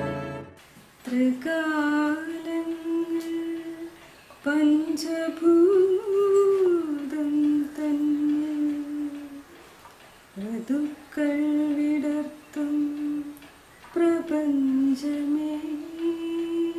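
An elderly man singing unaccompanied, slowly, holding long steady notes in about five drawn-out phrases with short breaths between them, plausibly the prayer he once recited on stage.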